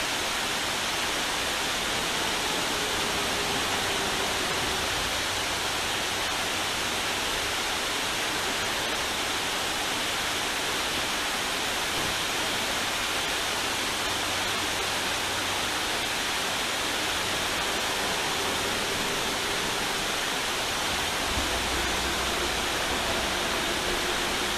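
Water pouring over a wide, low dam spillway: a steady, even rush of falling water.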